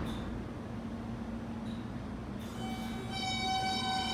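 NYC subway train of R160 cars starting to pull out of the station: a steady low hum, then about two and a half seconds in its traction motors start up with a whine of several stacked high tones.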